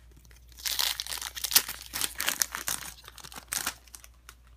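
Foil wrapper of a Pokémon trading card game booster pack crinkling and tearing as it is opened by hand. A dense run of sharp crackles lasts from about half a second in to near the end.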